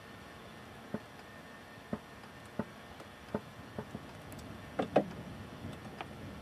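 Black spruce forest fire crackling: sharp pops and snaps about once a second over a steady low rush, with a loud cluster of cracks about five seconds in.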